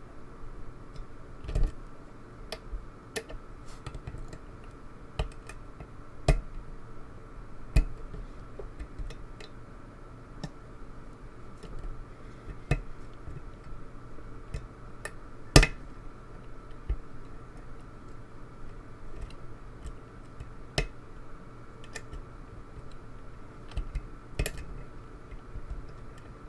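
Irregular small metallic clicks and taps of a steel lock pick and tension bar working the pins of a pin-tumbler lock, with the loudest click about halfway through. A faint steady hum runs underneath.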